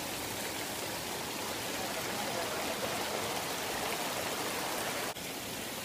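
Steady rush of hot-spring water running over the rocks where it crosses the trail, with a slight drop in level about five seconds in.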